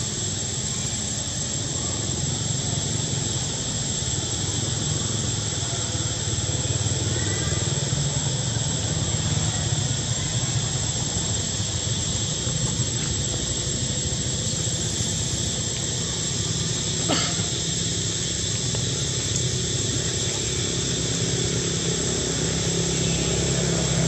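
Steady outdoor background noise: a low rumble under an even hiss, with a thin high-pitched whine throughout and a single brief click about seventeen seconds in.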